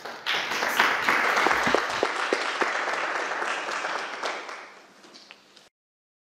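Audience applauding, a dense patter of many hands clapping that thins out and fades away about five seconds in.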